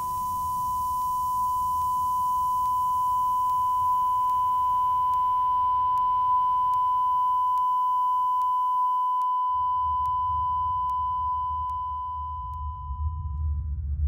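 A steady, high-pitched electronic pure tone, like ringing in the ears, standing for tinnitus. It is held over a low rumble and fades away near the end.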